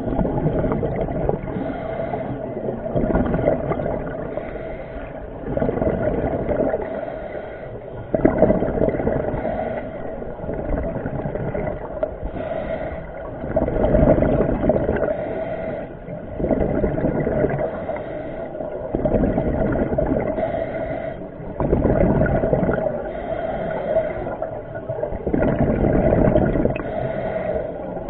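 Underwater sound picked up by a camera in its waterproof housing: a steady hum runs throughout, and a rush of bubbling water swells up and fades every two to three seconds.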